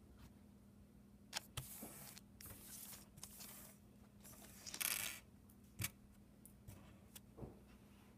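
Handling noises: a plastic packet rustling, with a few light clicks and taps of small hard objects. The loudest rustle comes about five seconds in.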